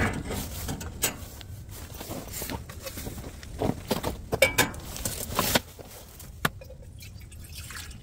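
Metal clinks and knocks as a gas camp stove and a stainless steel Stanley pot are handled and set down on a metal fold-down tailgate table: a string of separate taps over a steady low rumble.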